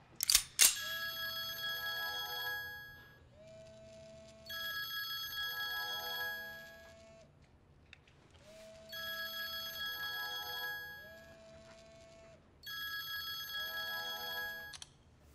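Two sharp clicks at the start, then an electronic phone ringtone rings four times, each ring a repeating melodic phrase about two seconds long with short pauses between.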